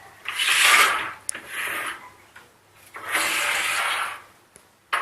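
A PC case being handled and moved about: three rubbing, sliding scrapes, then a sharp click near the end.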